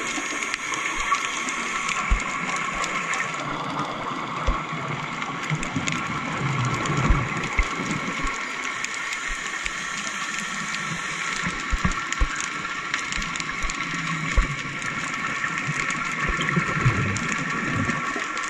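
Underwater ambience among the legs of an offshore oil platform: a steady hum of several tones with scattered clicks and knocks, and now and then a swell of bubbling from scuba divers' exhalations.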